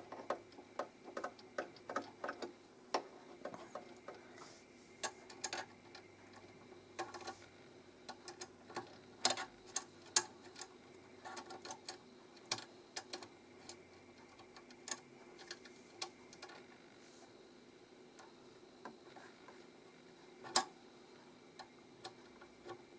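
Irregular small metallic clicks and taps of a screwdriver tightening the screws that hold a sewing machine's needle plate, coming quickly at first and more sparsely later, with one sharper tap near the end.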